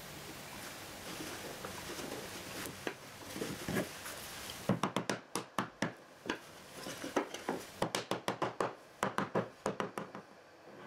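A soft-faced mallet tapping the board of a cherry and maple dovetailed box, seating the glued half-lap dovetail joints: about twenty quick light taps in short runs, starting a little before halfway through. Before the taps, only faint handling of the wood.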